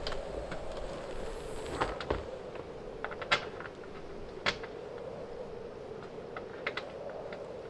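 Pop-up roof of a truck-bed camper being raised, with a few sharp clicks and creaks from its hinges and latches, the loudest about three and four and a half seconds in, over a steady low hum.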